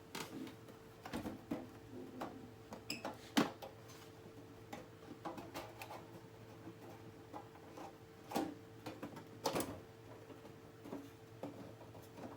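Irregular clicks and knocks of things being handled and set down, the loudest about three and a half and nine and a half seconds in, over a faint steady hum.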